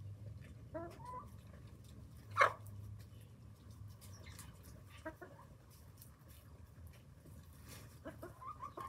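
Hens clucking in short calls while feeding, with a scatter of light pecking taps; a single sharp tap about two and a half seconds in is the loudest sound, and a quick run of clucks comes near the end.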